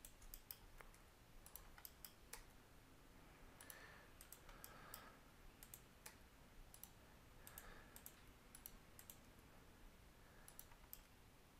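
Faint, irregular clicks of a computer mouse and keyboard over near-silent room tone.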